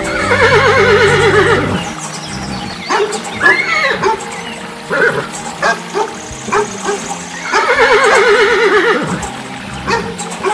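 Horse whinnying twice, a long quavering neigh at the start and again about eight seconds in, with short sharp animal calls and clicks between them.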